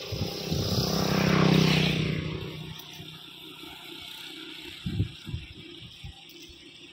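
A motor vehicle's engine passing by, swelling to its loudest about a second and a half in and fading away within about three seconds. A short low thump comes about five seconds in.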